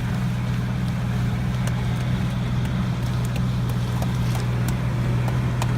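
An engine running steadily at a constant speed, with a few faint clicks over it.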